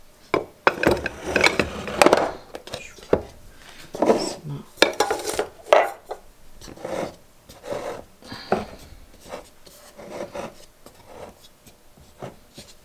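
Glass storage jars with bamboo lids being handled and set down on a windowsill: an irregular string of knocks and clatter, busiest in the first half and lighter toward the end.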